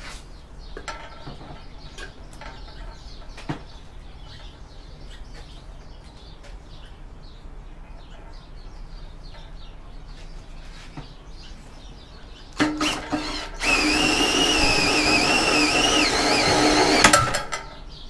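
Electric drill driving a crank-type copper wire stripper, starting with a short burst and then running with a steady motor whine for about three and a half seconds as it pulls thick, heavily insulated five-core cable through the blade, then stopping. Before that, only faint clicks of handling.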